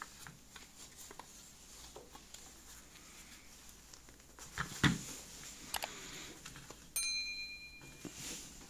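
Gloved hands handling a rusty pressed-steel Tonka toy Jeep on a rubber mat: scattered light clicks and scuffs of metal and plastic wheels, with a louder knock about five seconds in. Near the end comes a brief chime-like tone.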